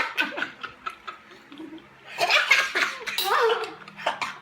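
Several young women laughing, a loud burst of laughter in the middle with squeals and gasps.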